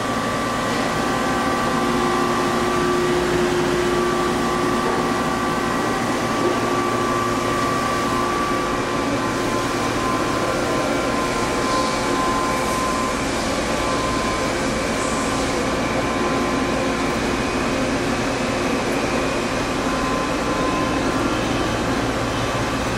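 Steady hum of running industrial machinery: fan-like noise with several steady whining tones layered over it.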